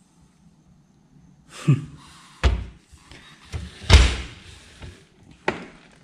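A series of knocks and thuds, the loudest about four seconds in and a sharp click near the end, as a cabinet in an abandoned bedroom is opened and the things inside are moved.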